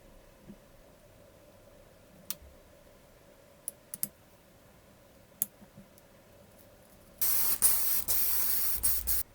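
A few scattered sharp clicks, then a pressurised spray hissing loudly for about two seconds, with several very short breaks, before it cuts off suddenly near the end.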